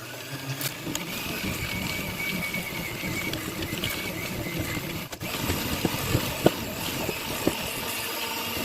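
Electric hand mixer running steadily as it beats a lemon sponge-cake batter, with a brief dip about five seconds in and a few light ticks of the beaters against the bowl afterwards; it cuts off at the end.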